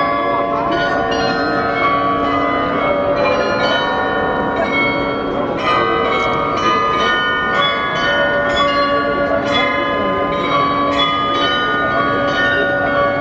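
The Munich town hall Glockenspiel's tuned bells playing a tune: bells struck one after another several times a second, each note ringing on under the next.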